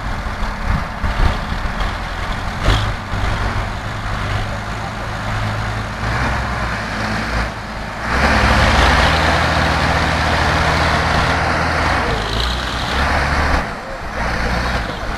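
Tractor diesel engines working hard under load as a tractor bogged in mud is towed out on a line. About eight seconds in they rev up louder and hold there for some six seconds, then ease off.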